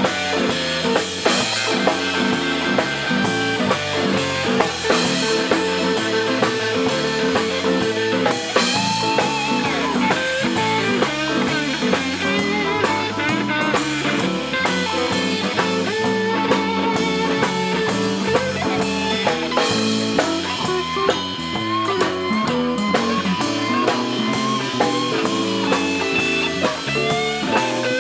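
Live electric blues-rock band playing an instrumental passage: electric guitars, electric bass and a drum kit with cymbals. A lead guitar line runs over the beat, its notes bent and wavering.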